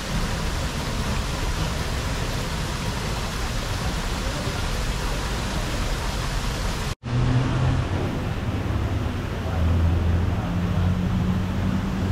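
Steady rushing noise of falling water, as from a waterfall. It breaks off for an instant about seven seconds in, then carries on slightly duller.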